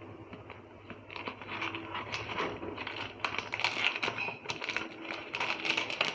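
Stylus pen packaging being handled and pulled out of its box: irregular crackling, rustling and small clicks that start about a second in.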